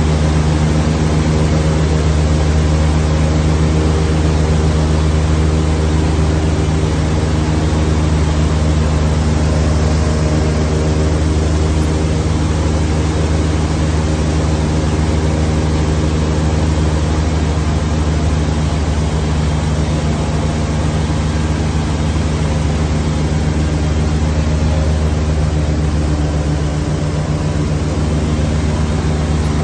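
Tour boat's engine running steadily at speed, one unchanging low pitch, over the rush of water along the hull.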